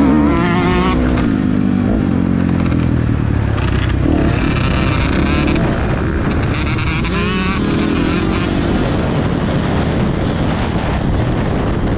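Motocross bike engine running hard at racing speed, its pitch rising and falling again and again as the rider works the throttle and gears, heard close up from a helmet-mounted camera.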